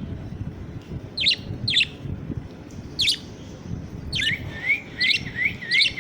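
Budgerigar chirping: a few sharp single chirps, then a quicker run of short, rising chirps near the end.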